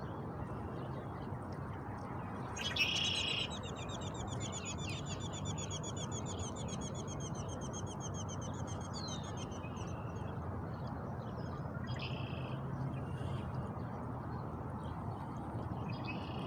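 Small bird singing: a short sharp call about three seconds in, then a rapid high trill of quickly repeated notes lasting about six seconds, and another short call near twelve seconds, over a steady low background hiss.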